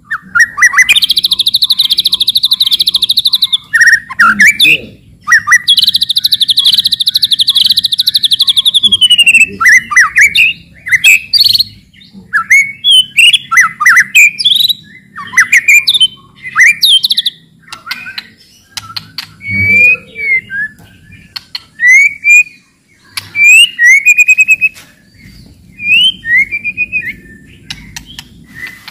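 White-rumped shama (murai batu) calling: two long, dense rattling chatters (cetrekan) in the first ten seconds, then varied song phrases and short rising whistled notes.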